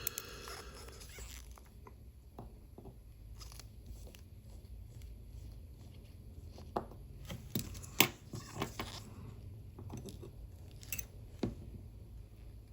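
Faint scattered clicks and light scrapes of small hand tools working on a watch movement during disassembly, with a few sharper ticks in the second half.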